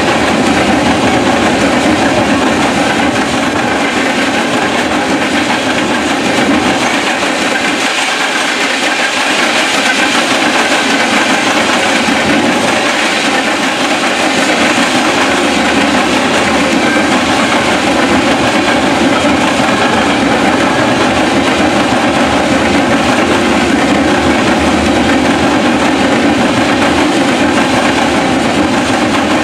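Freight train of covered hopper cars rolling past close by: a loud, steady rumble and rattle of steel wheels on the rails.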